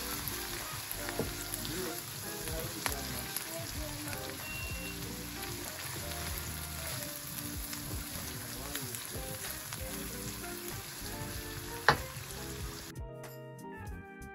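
Diced onion sizzling in melted butter in a wok, stirred with a wooden spoon. Near the end the spoon knocks once sharply against the pan, then the sizzling cuts off and music takes over.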